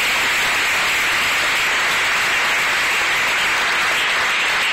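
Large seated audience applauding, a dense, steady clapping.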